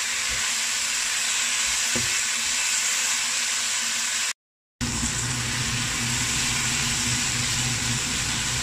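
Stir-fried lotus root and bell peppers sizzling steadily in a hot nonstick wok while being stirred with a spatula. The sound drops out for about half a second midway, then comes back with a low steady hum underneath the sizzle.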